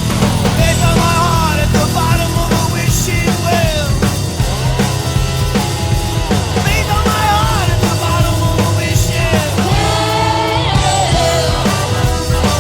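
Rock music with a sung vocal line over a steady bass.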